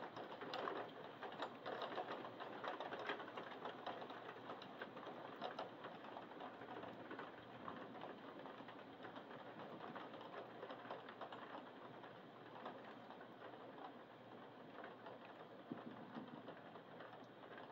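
Heavy thunderstorm rain falling: a steady, dense patter of drops with many small sharp ticks, a little heavier in the first few seconds.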